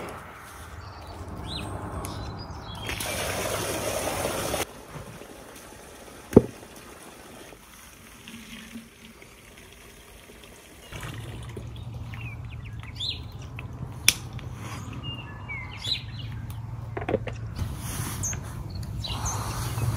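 Water pouring for about a second and a half, then scattered clicks and knocks. From about halfway through, a low steady hum runs underneath.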